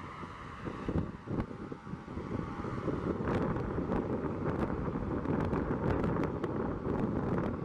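ATR 72-600's twin Pratt & Whitney PW127 turboprops at takeoff power during the takeoff roll, a steady rumble heard across the airfield, mixed with wind buffeting the microphone and some crackling from about three seconds in.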